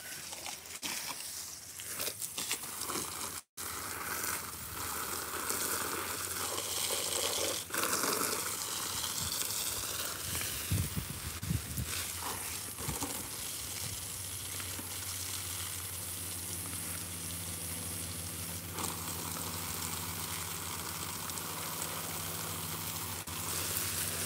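Garden hose spraying a fanned stream of water onto leaves and soil: a steady hiss and splash.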